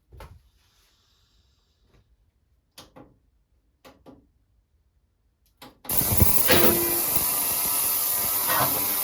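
A few light clicks and taps, then about six seconds in a loud, steady hiss starts suddenly and holds, with a couple of knocks over it.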